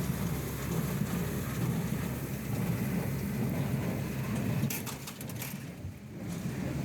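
John Deere 5085E tractor and John Deere 328 square baler running while baling hay: a steady low drone under a rough, even noise, which eases off briefly about five seconds in.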